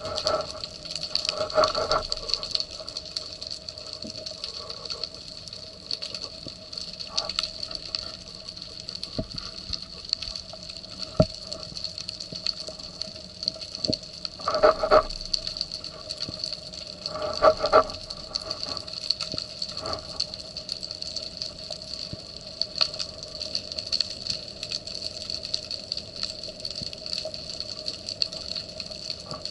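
Underwater ambience picked up by a camera on a speargun: a steady hiss with a constant hum, scattered sharp clicks, and a few short swells of water noise, one near the start and two about halfway through.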